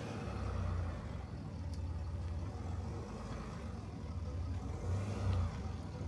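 Land Rover Discovery SUV's engine running as it rolls slowly along a dirt forest track, a low rumble that swells briefly about five seconds in.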